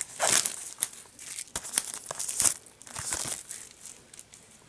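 Plastic shrink wrap crinkling and tearing as it is peeled off a Blu-ray case, in several separate bursts with small clicks, fading toward the end.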